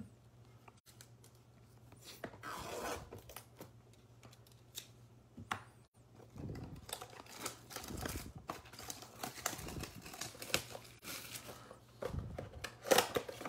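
Plastic shrink-wrap being torn and crinkled off a cardboard trading-card blaster box, with scattered clicks at first and a busy run of rustling and handling from about halfway, loudest near the end.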